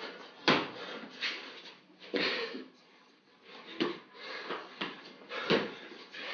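Feet and hands thumping onto a garage floor during burpees: about four heavy thumps, roughly a second and a half apart, with softer scuffs between.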